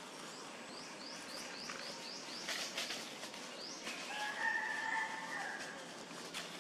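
A rooster crows once, one long held call about four seconds in. Before it a small bird gives a quick run of short rising chirps.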